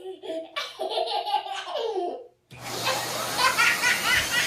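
A small child laughing. About two seconds in, the sound cuts off and a new stretch starts with high, squeaky squeals over a steady hiss.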